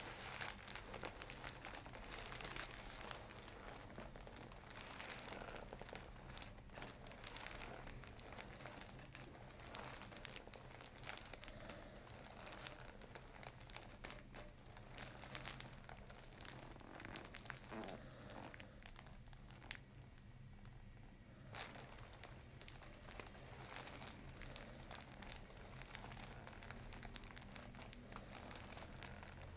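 Paper headrest cover crinkling and rustling under a head as hands hold and work the neck: a dense run of small crackles that thins out for a couple of seconds past the middle. A faint steady hum sits beneath.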